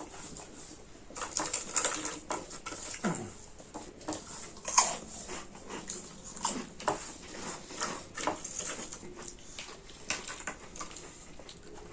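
Close-up eating sounds: irregular wet chewing, lip smacks and clicks, mixed with the odd tap of utensils or hands on plates.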